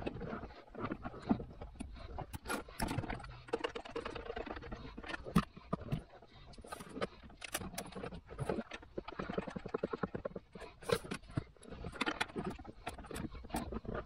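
Wiring loom and plastic footwell trim being handled by hand: an irregular run of clicks, taps and rustling as cables are fed and pressed in behind the trim panel.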